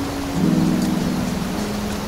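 Background music of held low notes, changing chord about half a second in, over the steady rush of a shallow rocky river.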